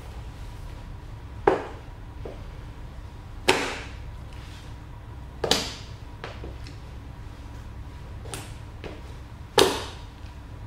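Cowboy boot heels stamping on a tile floor, crushing green grapes underfoot: four sharp knocks about two seconds apart, the last the loudest, with lighter steps between.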